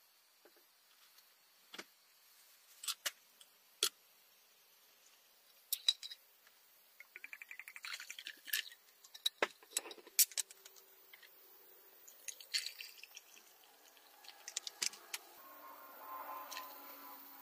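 Ice cubes clinking in a tall glass, then whisky poured over the ice with a quick crackling run of ticks about halfway through and a few more clinks. Near the end a soft hiss grows as carbonated soda fizzes in the glass.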